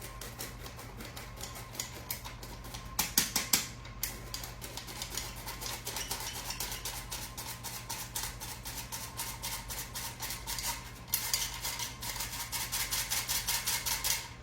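Hand flour sifter being worked steadily, a rapid run of raspy clicks about five a second as flour, baking soda and salt are sifted, growing louder near the end.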